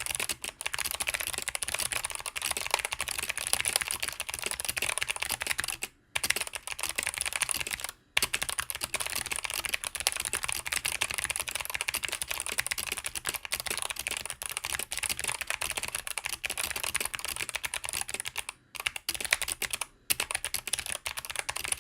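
Fast typing on a GMMK mechanical keyboard with clicky Kailh BOX Navy switches: a dense, rapid stream of key clicks with a few short pauses.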